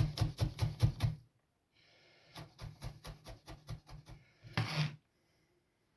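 Kitchen knife chopping garlic on a wooden cutting board: a quick run of knife strokes that stops about a second in, then a second, quieter run of strokes and a short scrape near the end.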